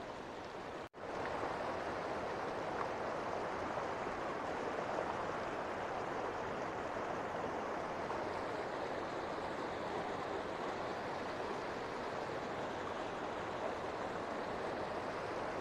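Mountain river rushing steadily over and between boulders. The sound cuts out for an instant about a second in.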